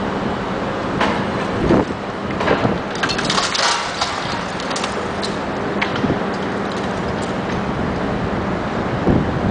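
Bricks cracking and crashing down as a John Deere 450 knocks a wall apart, with a dense burst of falling debris around three to four seconds in and scattered smaller cracks before and after. The machine's engine runs steadily underneath.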